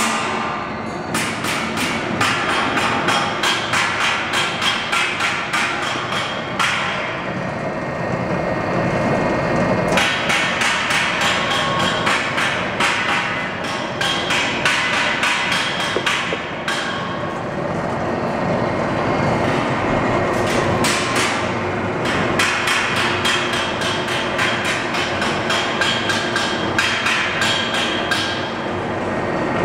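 Vacuum homogenizing emulsifying mixer running, with rapid knocking, several knocks a second, coming in runs broken by short pauses.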